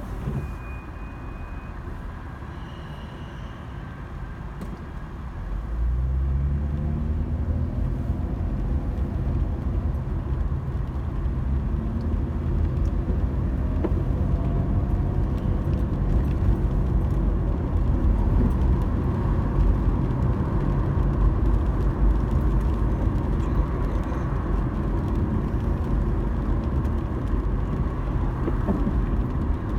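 A car's engine and road noise. It runs quietly for the first few seconds, then the car pulls away about six seconds in, the engine pitch rising as it speeds up. It settles into a steady low rumble of engine and tyres on the road.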